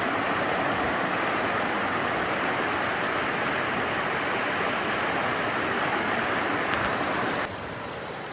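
Whitewater of a mountain river rushing steadily over rocks, dropping suddenly to a quieter rush about seven and a half seconds in.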